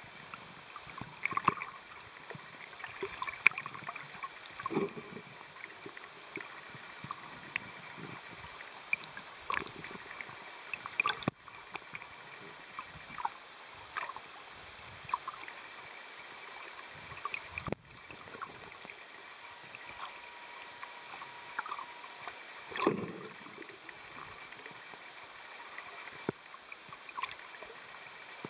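Underwater sound in open sea: a steady hiss with a faint steady high whine, dotted with scattered clicks, crackles and gurgles, and a louder gurgle about two-thirds of the way through.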